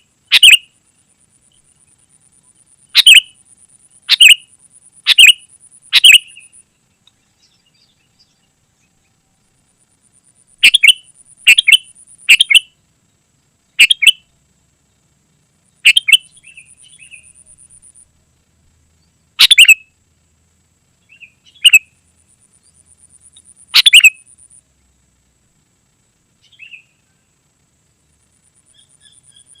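Sooty-headed bulbul calling: loud, short, sharp notes in irregular groups of one to four, with pauses of a few seconds between groups. A faint, high buzzing trill comes and goes between the calls.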